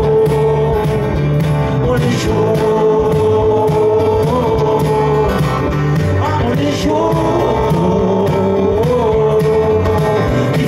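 Live band music: acoustic guitar, electric bass and keyboards over a steady beat, with a male voice singing long, held notes.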